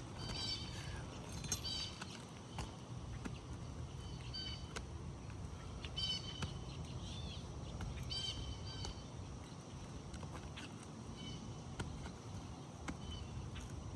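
Birds chirping in short, scattered calls over a steady low outdoor rumble, with a few faint clicks between them.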